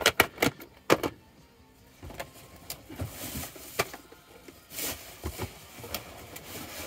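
Plastic VHS tape cases clacking as one is set down among others: a few sharp knocks in the first second, then softer scrapes and rustles of handling.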